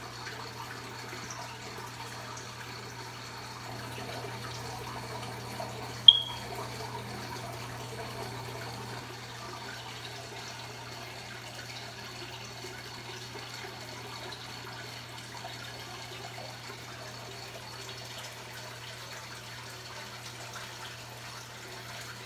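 Aquarium water and pump noise: a steady low hum with a faint trickle of water. One sharp click about six seconds in is the loudest sound.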